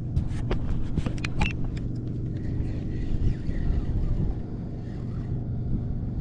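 Steady low rumble of wind buffeting the microphone over choppy water, with a few sharp clicks in the first second and a half as a spinning reel is worked against a hooked fish.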